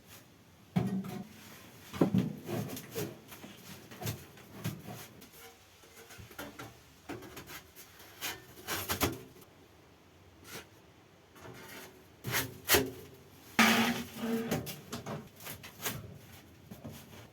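Wood being handled and worked: irregular knocks, clicks and rubbing scrapes of wooden pieces, with a louder knock near the end.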